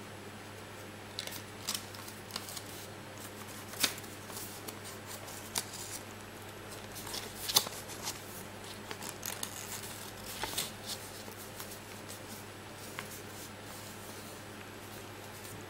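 A sheet of white paper being folded and creased by hand, with irregular crisp rustles and crackles, loudest about four seconds in and again around seven and a half seconds, then sparser. A low steady hum runs underneath.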